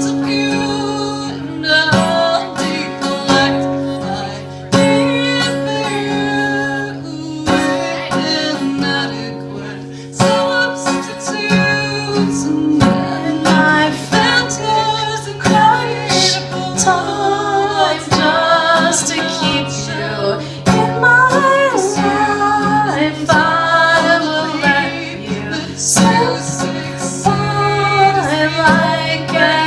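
Acoustic guitar strummed and plucked under a woman singing, with long held and gliding notes but no clear words.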